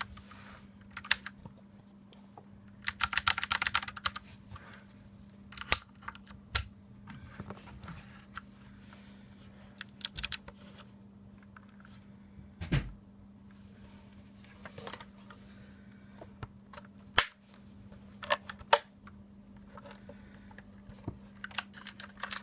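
Tomoko mechanical keyboard's clicky, clacky switches being pressed: a fast run of keystrokes about three seconds in, then scattered single key presses and short bursts.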